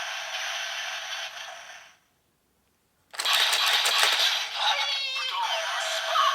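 Sound effects from a CSM Lockseed transformation toy's small speaker, with nothing in the bass. A steady hissing effect fades out about two seconds in. After a second of silence, a louder effect full of rattling, clinking clicks starts.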